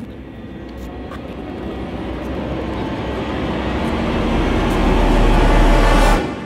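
Tape-rewind sound effect: a noisy rush that grows steadily louder for about six seconds, with a deep rumble swelling near the end, then cuts off suddenly.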